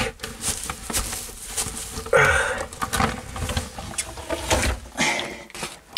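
Scratchy rustling and irregular light clicks as hands rummage through the bedding inside a doghouse, gathering hens' eggs laid there. A brief louder voiced sound comes about two seconds in.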